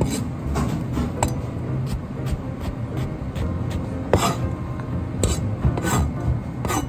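Chinese cleaver chopping eggplant on a plastic cutting board: several separate, unevenly spaced knocks of the blade hitting the board as the strips are cut into dice, over a steady low rumble.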